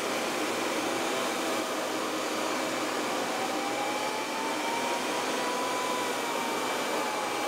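KingTech K-310G model jet turbine running steadily on a thrust test stand: an even rushing jet noise with a thin high whine over it, and a fainter tone that slowly rises and then falls in the middle.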